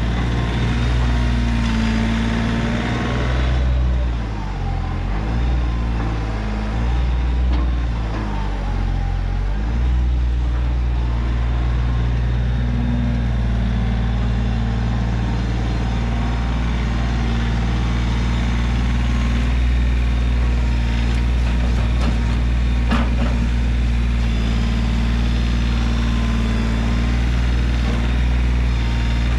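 Kioti CK3510 compact tractor's three-cylinder diesel engine running steadily as the tractor works its front loader, the engine pitch shifting up and down between about four and ten seconds in, then settling.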